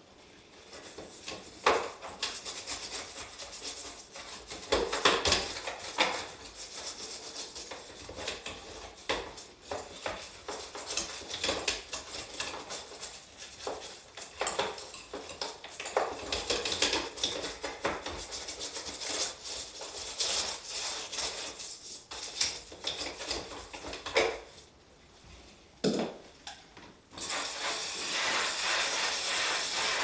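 Clicks, knocks and rubbing as the panels and parts of a wall-mounted air-conditioner indoor unit are handled during cleaning, under its plastic cover. About three seconds before the end a steady spray hiss from the cleaning hose starts.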